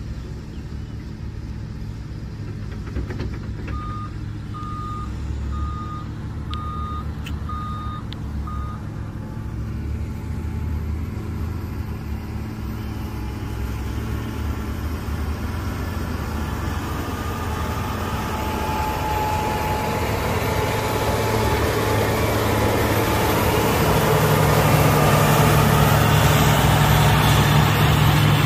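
Caterpillar 120 motor grader's diesel engine running steadily, growing louder as the machine comes close and loudest near the end. A reversing alarm beeps a string of short, evenly spaced beeps a few seconds in.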